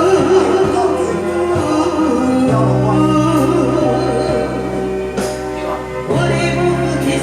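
Karaoke backing music of an enka song playing, with a melody line that wavers in pitch.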